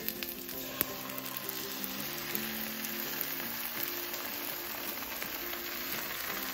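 Beaten eggs poured into a hot cast-iron skillet over spinach, sizzling steadily as they spread across the pan; the sizzle picks up about a second in.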